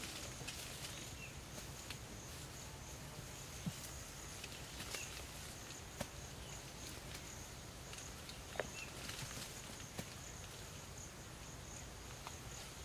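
An insect trilling steadily at a high pitch in a quiet outdoor ambience, with a few sharp clicks scattered through.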